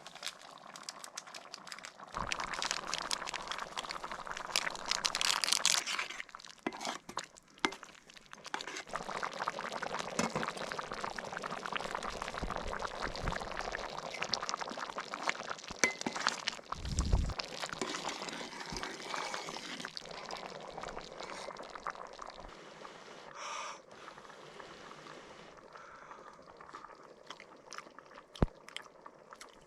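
Close-up cooking and food-handling sounds: irregular rustling, clicking and crunching, with liquid being poured or stirred, louder through the first two-thirds and quieter near the end.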